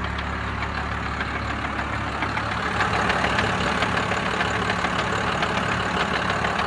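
1996 Dodge Cummins 5.9-litre turbo diesel idling, with a rapid light knocking from its NV4500 manual transmission that the owner thinks is a failing bearing. The ticking gets a little louder about three seconds in.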